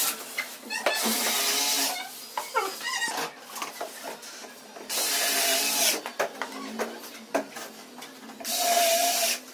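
Cordless screwdriver running in three bursts of about a second each, driving screws through PVC ceiling panels and trim into the frame, its motor whining.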